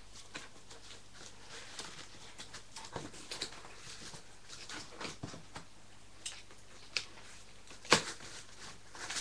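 Fingers and fingernails scratching and picking at packing tape on a cardboard box, with scattered small clicks and a sharper crackle near the end.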